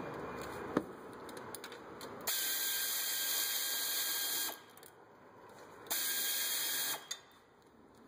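Pneumatic air ratchet running in two bursts, about two seconds and then about one second, with a strong hiss of exhausting air, driving in the wheel hub assembly's mounting bolts. A single sharp knock of metal tools comes under a second in.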